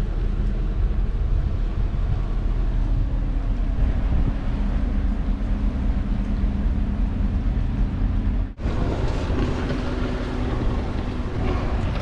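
Steady low drone of a passing tugboat's diesel engine under heavy wind rumble on the microphone. It drops out briefly about two-thirds of the way through, then the drone resumes with a slightly different hum as jet skis run on the water.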